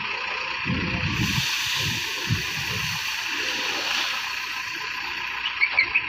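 Aggregate pouring from the backhoe loader's raised front bucket into a hopper: a steady rushing hiss from about a second in until near the end, over a low engine rumble that fades halfway through. Short repeated chirps start just before the end.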